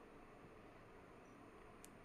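Near silence: faint steady hiss between narrated words.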